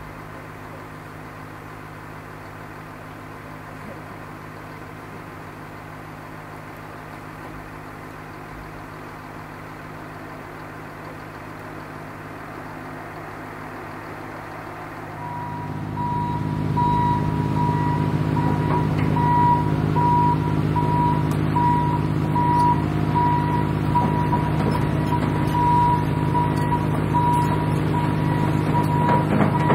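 A steady low rumble, then about halfway in a heavy construction vehicle's engine comes up loud with its reversing alarm beeping about once a second.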